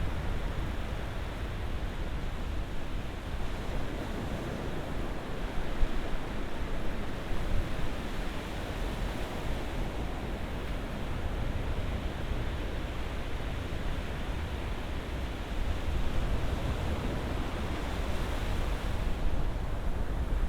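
Ocean surf: a steady wash of breaking waves with a deep rumble, swelling slightly louder in the last few seconds.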